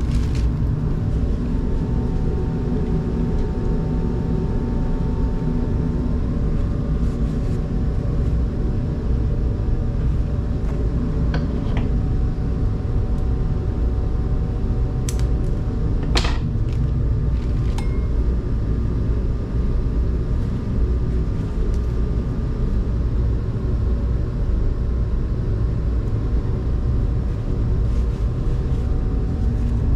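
Steady low rumble of an engine running, with a few sharp clicks about halfway through.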